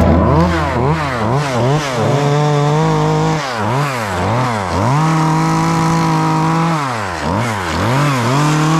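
Small Echo two-stroke chainsaw with a narrow carving bar, its throttle blipped in quick rises and falls about twice a second, then held at high revs while the chain cuts into wood. Near the end the revs dip and rise a few times more before steadying.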